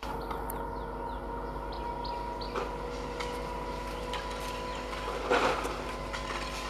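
Electric multiple unit (EMU) local train approaching, its electrical equipment giving a steady multi-tone hum and whine. Small birds chirp in the first second or so, and a short, louder noisy burst comes about five seconds in.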